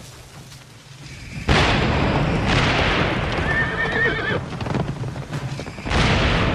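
Battle sound effects: a cannon blast about a second and a half in and another near the end, with the din of battle between them and a horse whinnying in the middle.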